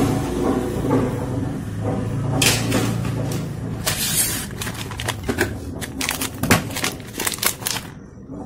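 Plastic parts boxes and electronic components handled by hand: clattering plastic and rustling, then a quick run of sharp clicks and knocks in the second half.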